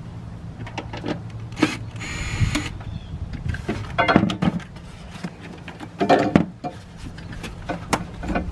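Clicks, knocks and scraping as hands and tools work the plastic and metal intake parts at the throttle body of a Ford F150 engine during removal of the air intake assembly, with a brief harsh rasp about two seconds in and a steady low hum underneath.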